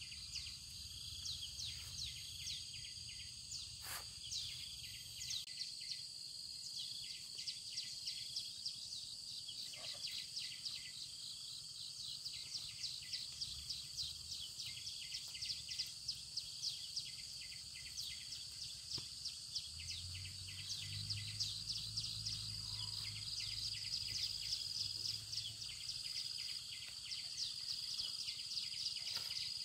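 Outdoor insect chorus: a steady high-pitched drone with fast, evenly repeated high chirps running through most of it.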